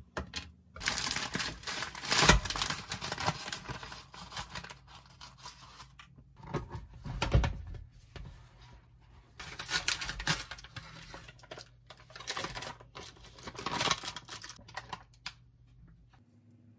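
Bundles of dry thin wheat noodles dropped and slid into a clear plastic storage container, the stiff strands clattering and rattling against the plastic in several bursts.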